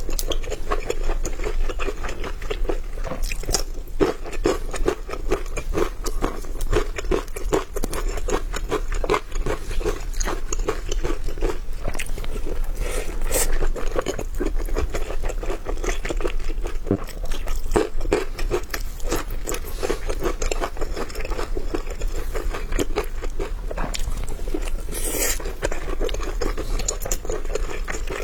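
A person chewing food close to the microphone, with a dense, continuous run of crisp crunches and wet chewing.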